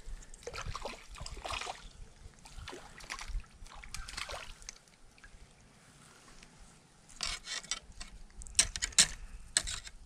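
Water splashing and trickling as a hooked redbreast sunfish is reeled in and lifted out of the creek, with several sharp splashes in the last three seconds.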